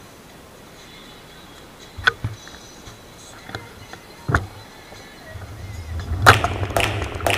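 A bicycle setting off across asphalt: a couple of isolated clicks, then from about five seconds in a rising low rumble of wind on the microphone and a run of sharp rattling clicks from the moving bike.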